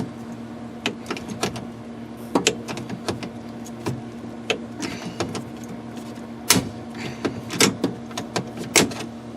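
Hand pop rivet gun being worked to set a 3/16 aluminum pop rivet: a series of sharp metallic clicks, the three loudest about a second apart near the end, over a steady low hum.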